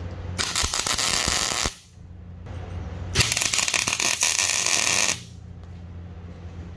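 MIG welder laying two short weld beads on steel plate, each a crackling sizzle lasting about one and a half to two seconds, the second starting about three seconds in. A steady low hum runs underneath.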